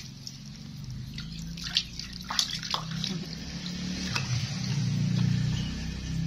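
Water sloshing and dripping in a plastic basin as a baby monkey sitting in it is washed by hand, with a few brief sharp splashes.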